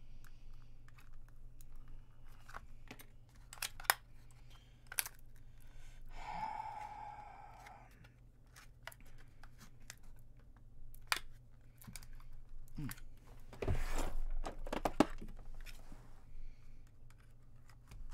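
Scattered clicks and snaps of hand tools working the plastic case of an HP MU06 laptop battery pack being taken apart. A rasping tear comes about fourteen seconds in. About six seconds in, a steady tone sounds for about two seconds.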